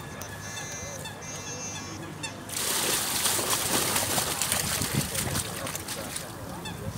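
A tub of water and live fish tipped out into a pond: a gush of pouring, splashing water starts about two and a half seconds in and eases off about a second before the end.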